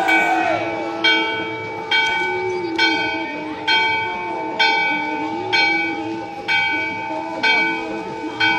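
Temple bell rung steadily during aarti, struck a little faster than once a second, its ringing tones carrying over from one strike to the next.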